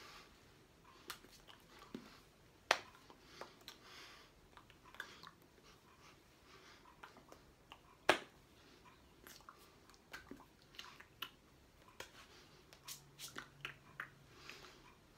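Small hand, mouth and clothing noises of a person signing in silence: scattered soft rustles and light clicks, with two sharper slaps of the hands meeting, one about a fifth of the way in and a louder one about halfway.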